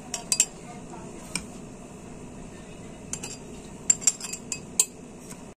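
A metal spoon tapping against a drinking glass as crushed graham crackers are spooned into it: a few scattered light taps, with a quick cluster of several about four to five seconds in.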